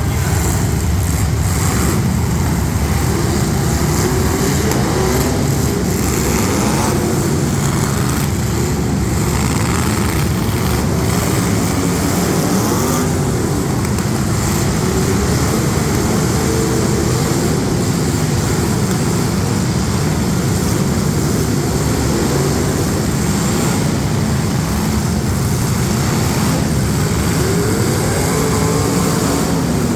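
Several demolition derby street stock car engines running loudly together, revving up and down over and over.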